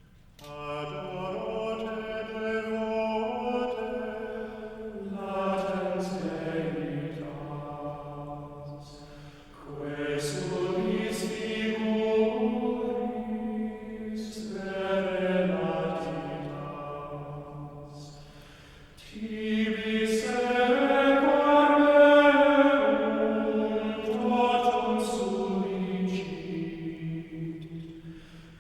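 Liturgical chant sung by a single low voice, one slow melodic line of sustained notes in three long phrases with short pauses between them.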